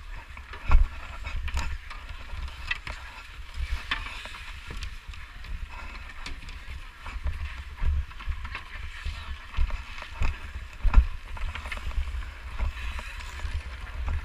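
Ice hockey skates gliding and scraping on outdoor rink ice, with scattered sharp clacks of sticks and pucks. Low rumble of wind buffeting the camera's microphone runs under it.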